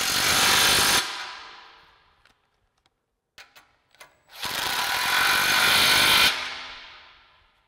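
Cordless impact wrench with a 15 mm socket hammering exhaust band-clamp nuts tight in two runs of about a second and a half to two seconds, the second starting about four seconds after the first ends. A few light clicks come between the runs.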